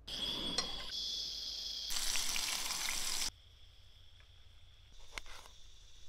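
Water pouring and splashing, loudest for about a second and a half midway, then stopping suddenly. A steady high insect trill runs behind it.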